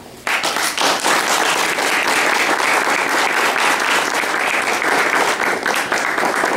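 Audience applauding, breaking out suddenly just after the start and holding steady throughout.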